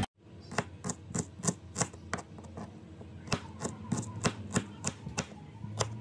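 Kitchen knife slicing shallots and chilies on a wooden cutting board: quick, short knocks of the blade on the wood, about three a second.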